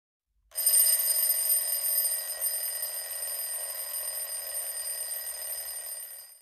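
A bell ringing continuously with a bright, high, shimmering ring. It starts abruptly about half a second in, fades slowly, and cuts off just before the end.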